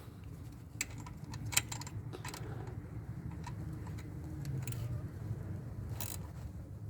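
Scattered light metallic clicks and clinks of wrenches, a nut and a washer being handled on a radiator fan bracket bolt, over a steady low rumble.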